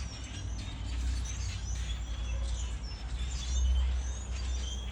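A flock of birds chirping and calling, many short high chirps overlapping each other, over a steady low rumble.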